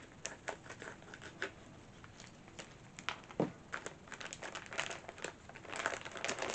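Clear plastic bag crinkling and rustling as it is handled and opened, in short irregular crackles that come thicker near the end.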